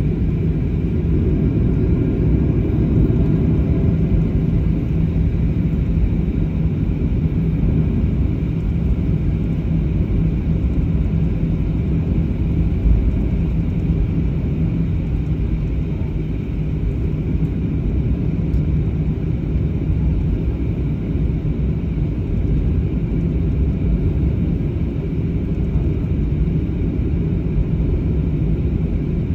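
Inside a jet airliner's cabin while taxiing: the engines and the rolling aircraft make a steady low rumble with a constant low hum.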